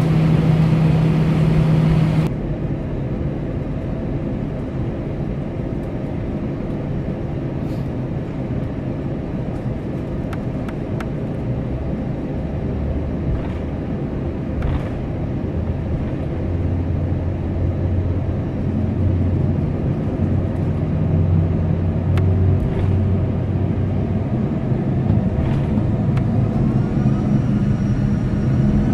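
Airbus A320's CFM56-5B jet engines heard from inside the cabin. A louder stretch cuts off abruptly about two seconds in, then the engines run at a steady low rumble near idle. Near the end a fan whine starts rising as the engines spool up to take-off thrust.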